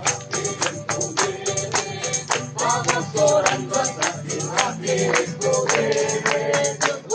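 Gospel worship music: a tambourine struck in a steady beat, with voices singing over it from a few seconds in.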